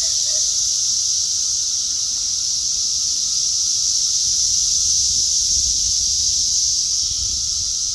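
Steady high-pitched chorus of many 17-year periodical cicadas, an even unbroken drone.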